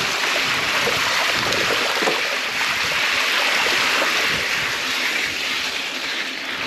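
Mountain bike tyres (29-inch Hutchinson Toro) rolling through shallow water on a flooded track, a steady splashing hiss that eases off near the end as the bike comes out onto dry ground.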